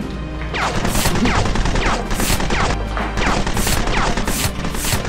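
A fast run of edited-in combat sound effects, sharp hits each with a falling whistle, about two to three a second, over background music.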